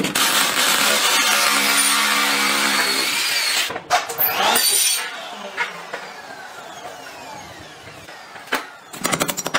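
Cordless drill-driver running steadily for about three and a half seconds, driving a screw into a wooden stair handrail post. After a break it is quieter with a few clicks, then a fast run of knocks starts near the end.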